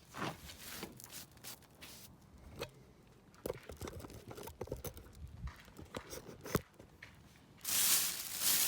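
Scattered clicks and light knocks of small objects being handled, then a louder, even rustling or crinkling starting near the end, like plastic or paper wrapping.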